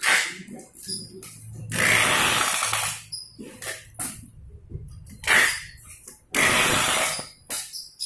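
Packing tape pulled off a handheld tape dispenser in several rasping strips, the longest about a second each, with short clicks and rustles of the cardboard boxes in between.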